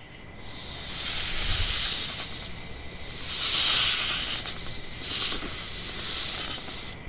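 A snake hissing, a steady high hiss that swells and fades about three times.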